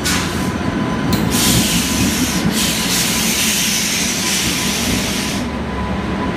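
WAP7 electric locomotive and the coaches of a passenger express rolling past close by along a platform, a steady loud rumble with a strong hiss from about one to five seconds in.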